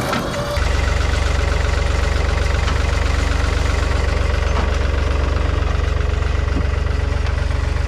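A vehicle engine running at a steady idle, its deep rumble stepping up in loudness about half a second in.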